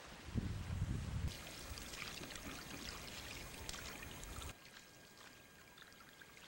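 Wind buffeting the microphone for about the first second, then canoe paddles dipping with water splashing and dripping, becoming fainter about four and a half seconds in.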